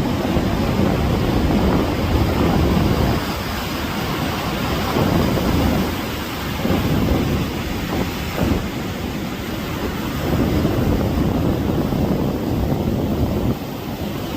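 Ocean surf washing onto the beach: a continuous deep rush of breaking waves that swells and eases every few seconds.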